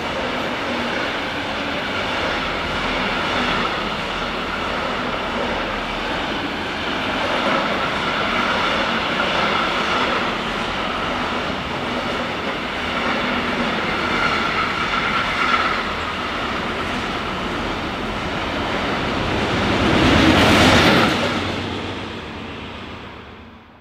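A train running past on the line: a steady noise of wheels on rails with a faint high whine. It is loudest about twenty seconds in, then fades quickly near the end.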